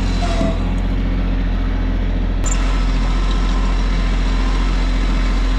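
Tractor engine running steadily with a low, even drone; about halfway through the sound changes abruptly with a click, then runs on steadily.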